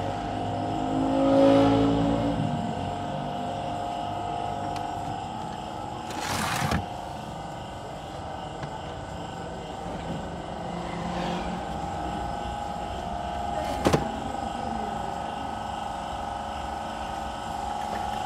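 Steady mechanical hum, with a louder swell about a second in and two sharp knocks, one around six seconds in and one near fourteen seconds.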